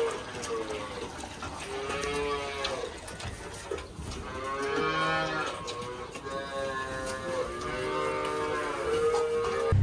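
Holstein calves mooing in their pens, several drawn-out calls one after another, at milk feeding time.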